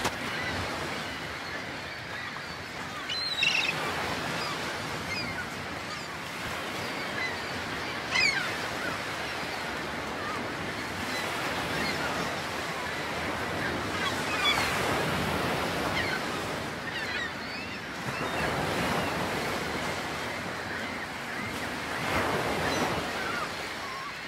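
Sea surf washing steadily against a breakwater, with a few short bird calls now and then.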